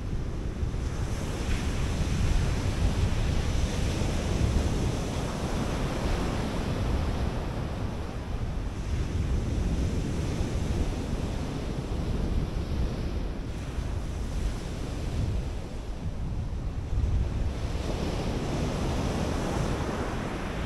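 Surf breaking on a sandy beach, a steady wash of sea noise that swells and eases, with wind rumbling on the microphone.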